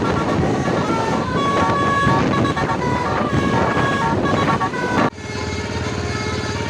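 Basuri multi-tone bus horn (telolet) playing a tune of stepped tones over bus engine and traffic noise. About five seconds in it cuts off abruptly and music takes over.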